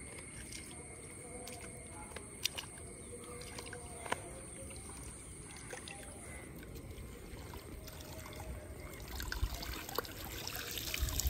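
Water trickling and splashing as a wet cast net is drawn in through shallow, fast-flowing stream water and lifted out. The splashing grows louder over the last couple of seconds.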